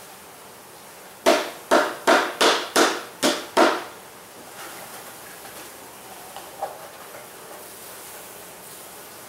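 A wooden package of bees knocked down hard seven times in quick succession, about three knocks a second, jarring the bees down into a cluster so the rest can be shaken out into the hive.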